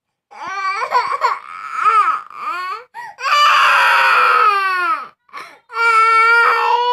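Toddler crying: a run of short, broken cries, then a long wail about three seconds in, and another long cry starting near the end.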